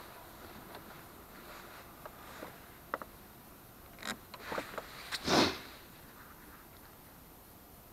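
A few light clicks and knocks of handling, then a short loud breath or sniff close to the microphone just after five seconds in.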